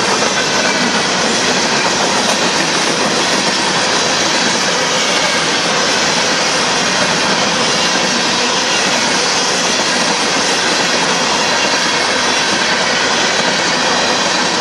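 Union Pacific freight train of covered hopper cars rolling past at a grade crossing: a loud, steady rolling noise of steel wheels on the rails.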